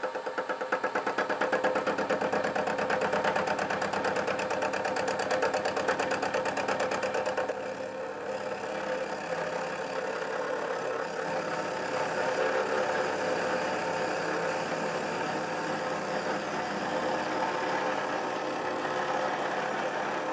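Small school-type metalworking machine tool running under power, its motor and gearing making a steady mechanical drone. For the first seven seconds or so it pulses fast and regularly, then it settles into a smoother, slightly quieter run.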